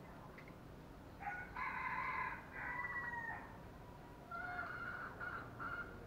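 A rooster crowing once in the background, about a second in, the crow ending on a falling note; a shorter, fainter call follows near the end.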